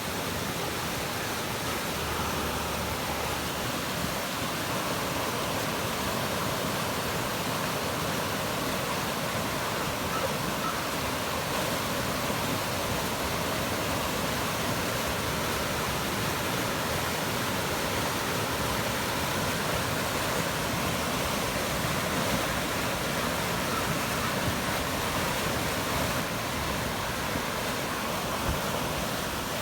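Flash-flood debris flow rushing down a mountain creek: a steady, unbroken wash of fast, turbulent water carrying logs and debris.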